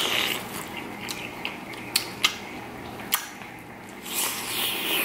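Biting and chewing corn on the cob: crisp crunching of kernels with a few sharp, wet clicks.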